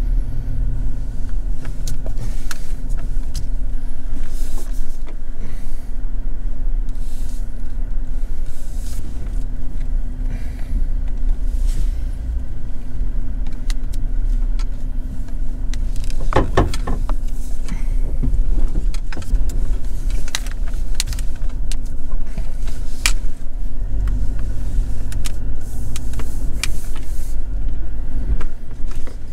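Truck driving slowly over a rough dirt trail: a steady low engine and road drone, with frequent knocks and rattles as it goes over bumps.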